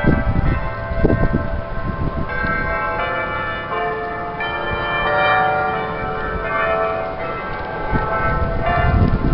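Several church bells ringing together, strokes coming one after another and each tone ringing on and overlapping the next. Occasional low rumbles sit underneath, at the very start, about a second in and near the end.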